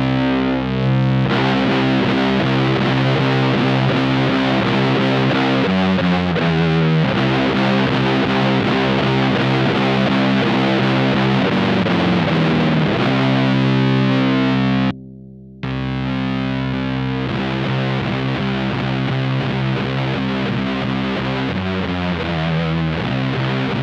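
Electric guitar played through a one-knob fuzz pedal into a '69 Laney Supergroup amp: a slow, heavily distorted doom riff of held chords. It has a sliding drop in pitch about halfway through and a brief dead stop a little later before the riff comes back in.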